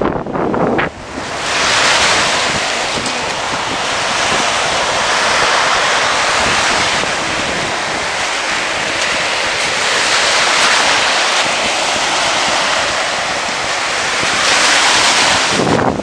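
Surf washing onto a sandy beach: a steady hiss that swells and eases a few times, starting about a second in, with some wind on the microphone.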